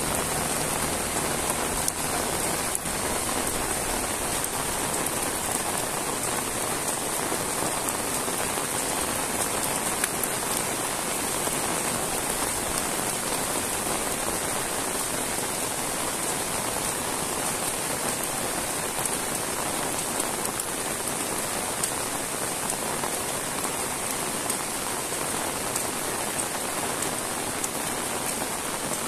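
Heavy rain falling steadily on a paved road and roadside vegetation: a dense, even hiss with scattered ticks of drops.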